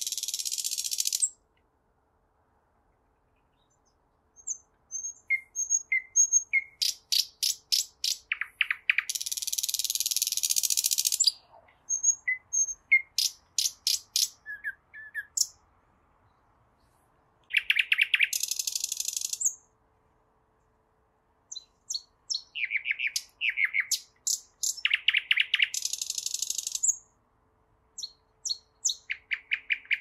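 Nightingale singing in separate phrases of rapidly repeated high notes and harsh buzzing rattles, each phrase a few seconds long, with short silent pauses between them.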